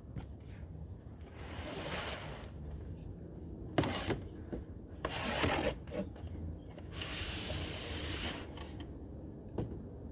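Packaging being handled during an unboxing: rustling and scraping of cardboard and packing material in several stretches, with a sharp knock about four seconds in and a smaller click near the end.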